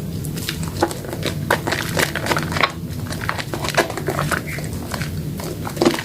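Soaked soap being squeezed and lathered by hand: rapid, irregular wet squelching and crackling clicks.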